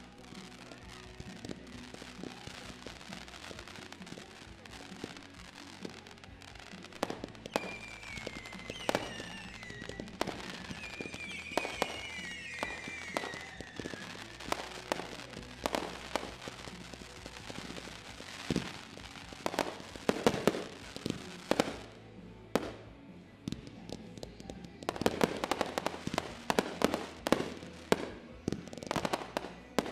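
Fireworks finale: a barrage of aerial bangs and crackle, the reports coming thick and fast about twenty seconds in and again in a heavy run near the end.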